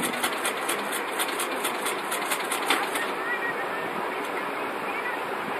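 Paper pages of a paperback manga volume being turned and rubbed by hand, rustling over a steady hiss. A fast, even ticking of about five a second runs alongside and stops about halfway through.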